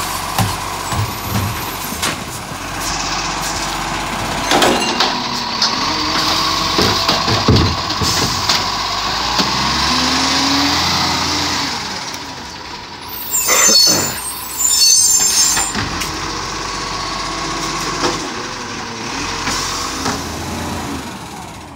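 Side-loader garbage truck running while its automated side arm lifts and empties wheelie bins: engine noise with a rising-then-falling whine around the middle, and a loud burst about two-thirds of the way through.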